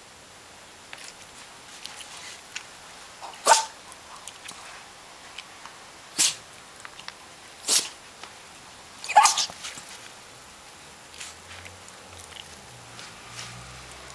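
A Pomeranian sneezing four times in a row, each a short, sharp sneeze a second or two apart; the last, about nine seconds in, is longer and ragged.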